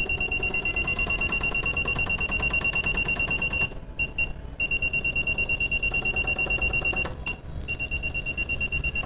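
Control panel of a Juki LBH-1790 buttonhole sewing machine beeping in a fast, even string of high-pitched beeps as its value key is pressed and held to step the Y feed motor origin setting. The beeping stops briefly twice, about four and about seven seconds in.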